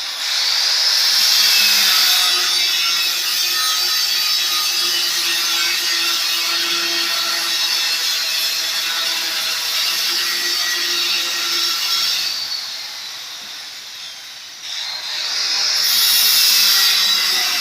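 Handheld electric power tool starting abruptly and running under load, cutting, for about twelve seconds. It then winds down and starts again with a rising whine about fifteen seconds in.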